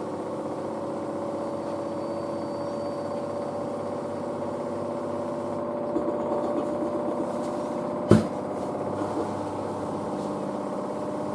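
Front-loading washing machine on its spin at about 1000 rpm: a steady motor whine with the drum humming, still climbing toward its 1200 rpm top speed. A single sharp knock sounds about eight seconds in.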